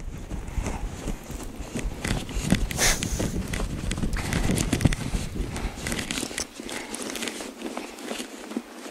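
Footsteps crunching in snow, irregular crackling steps. A low rumble on the microphone underlies them and drops away about six and a half seconds in.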